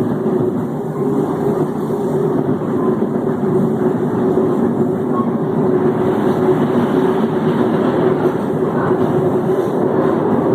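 Electric multiple unit TUE 1726 running along the line, giving a steady growling drone with a constant hum tone from its traction equipment over the rumble of the running gear.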